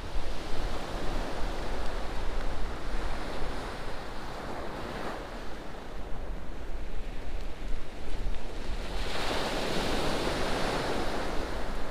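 Sea waves breaking and washing on a shingle beach, with a wave surging loudest about nine seconds in. Wind rumbles on the microphone underneath.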